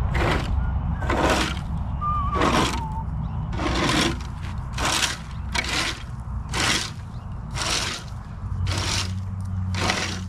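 Regular scraping or crunching strokes, about one a second, over a steady low engine hum, with a short chirp about two seconds in.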